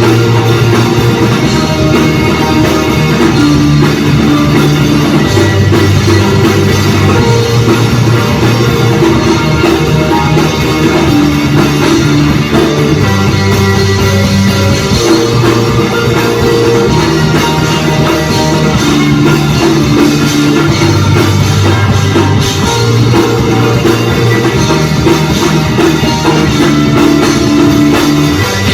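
Rock band playing live: drum kit and guitars at full volume, over a low line that moves to a new note every second or two.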